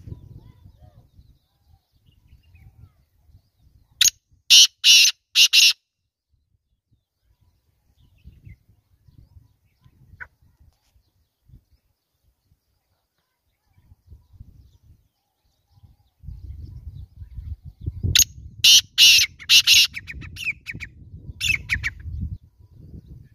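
Male black francolin calling: a phrase of four sharp, high-pitched notes about four seconds in, then a longer run of quicker notes near the end.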